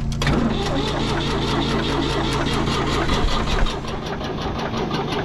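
A small engine being cranked on starting fluid, firing in a rapid even beat and trying to catch but not yet running on its own.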